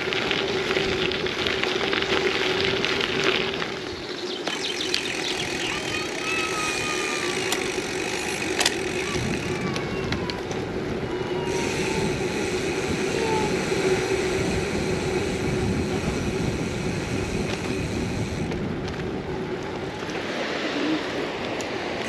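Steady road and wind noise from riding a gravel bike, with a constant hum under it and a few faint squeaks and a click.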